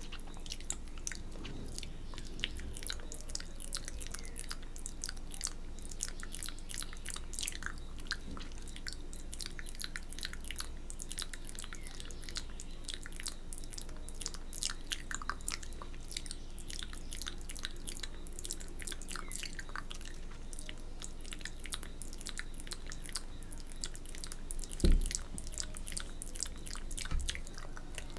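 Close-miked wet mouth sounds: rapid clicks, smacks and licking as fingers are wetted at the lips for ASMR spit painting. A single low thump comes about three quarters of the way through.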